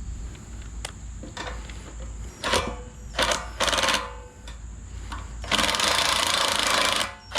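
Power tool with a 15 mm socket running a bumper bolt in, in three short bursts and then one longer run of about a second and a half near the end.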